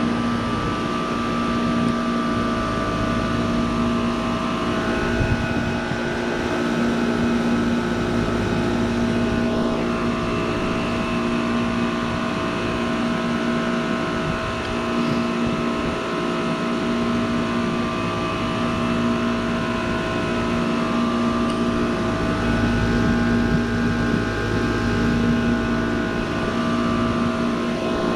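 2006 Goodman CPLE heat pump outdoor unit running in its defrost cycle: a steady compressor hum with several held tones over a low rumble.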